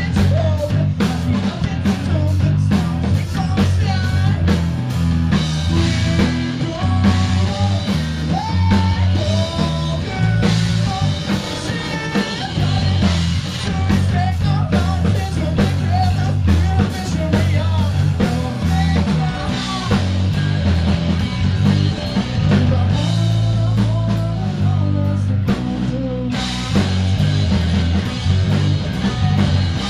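Rock band playing live with drum kit, electric guitar and bass, with a sung vocal over it, heard loud from the crowd.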